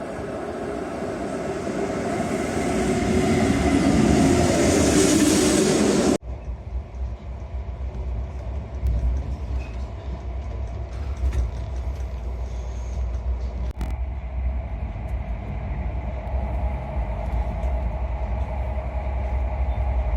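Train running: a wide rushing noise that grows louder over the first six seconds, then an abrupt change to a steady low rumble with scattered clicks.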